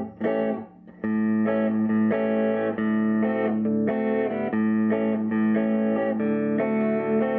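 Electric guitar played through a 1951 Gibson BR-6 tube amplifier. After a brief drop about half a second in, a steady run of picked notes and chords, struck about twice a second.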